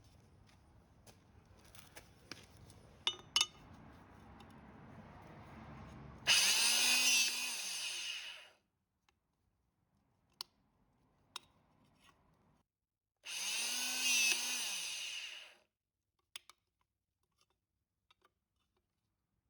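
A small electric power tool run twice for about two seconds each, its motor spinning up and winding down each time, with a few handling clicks in between.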